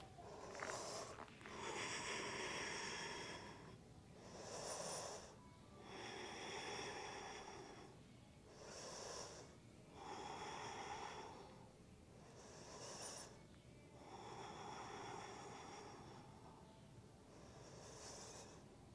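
A woman's slow, faint, audible breathing while holding a yoga pose: about four and a half breath cycles, one every four seconds or so. Each is a short, hissier breath followed by a longer, fuller one.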